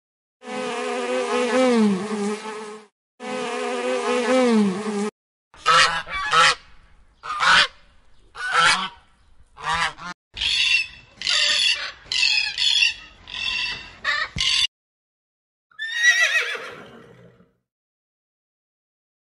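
Domestic waterfowl calling: two long, wavering nasal calls, then a quick run of about a dozen short calls, and one last call falling in pitch near the end.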